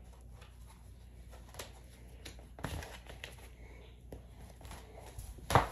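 Cardboard vinyl album sleeves being handled, a gatefold cover opened, with soft rustles, scrapes and small knocks; the loudest knock comes near the end.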